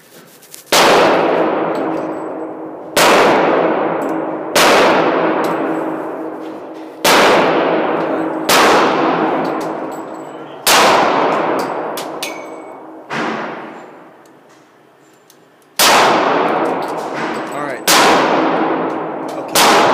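Pistol shots fired one at a time, about nine, spaced a second and a half to two and a half seconds apart, each with a long ringing echo in the indoor range.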